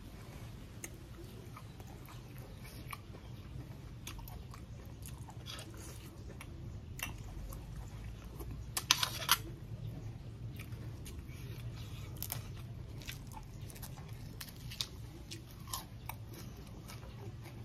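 Close-miked chewing and biting of raw beef and offal dipped in bitter jaew sauce, with wet mouth clicks and crunching. A short cluster of louder clicks comes about halfway through.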